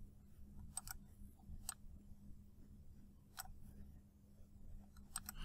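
Faint, scattered clicks of a computer mouse, about six in all, some in quick pairs, over a low steady hum.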